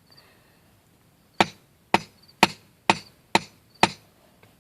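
A hammer striking a smartphone six times in a steady rhythm, about two blows a second, starting a little over a second in.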